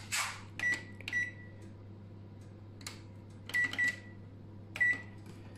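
Built-in electric oven's digital control panel beeping as its timer buttons are pressed to set a 30-minute bake: five short high beeps, each with a faint button click, in three small groups.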